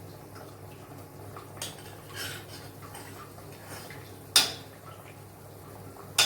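Metal utensil scraping and clinking against a cooking pot, with one sharp loud knock of metal on the pot about four and a half seconds in.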